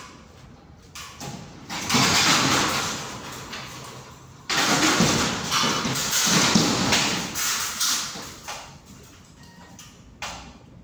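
Ceiling boards and their metal frame being pulled down by hand: two long bouts of scraping and tearing, the first about two seconds in and the second about four and a half seconds in, with a few short knocks around them.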